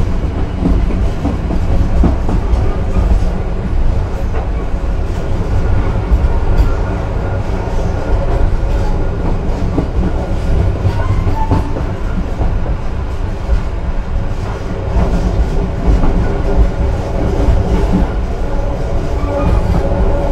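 Passenger train running along the track: a steady rumble from the carriage, with frequent clicks and knocks from the wheels on the rails.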